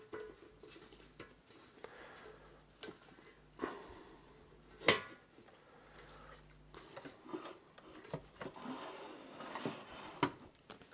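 Handling noise from a phone being set in place: scattered light knocks, clicks and rustling close to the microphone, with a sharper knock about five seconds in.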